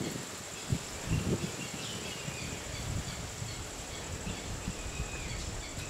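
Outdoor nature ambience: a steady high-pitched insect drone with a few short bird chirps over it. Underneath is low wind rumble on the microphone, with a few thumps about a second in.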